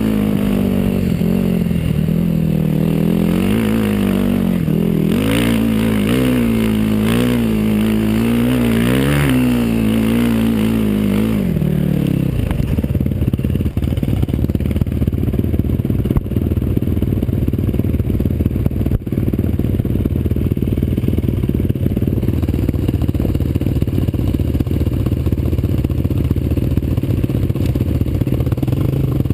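Single-cylinder sport ATV engine being ridden. For about the first twelve seconds it revs up and down repeatedly through the throttle. After that it runs at a steady, loud, rough pitch to the end.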